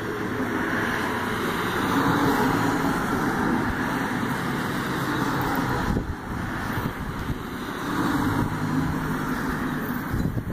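Rushing road-traffic noise that swells twice, about two seconds in and again near the end, as vehicles pass.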